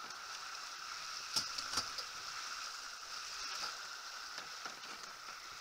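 Steady hiss of water rushing along a Farrier F-31 trimaran's hulls under sail, with two light clicks about a second and a half in.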